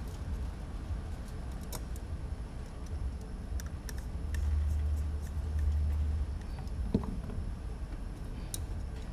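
Small scattered clicks and taps of a hex screwdriver driving screws into a carbon-fibre drone frame and of the frame plates being handled, with a sharper knock about seven seconds in. A low rumble swells for about two seconds around the middle.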